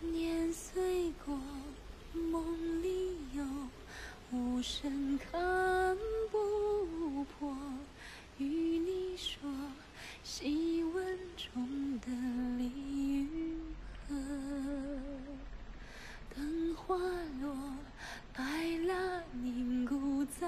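Background music: a woman singing a melody in held notes, some of them wavering.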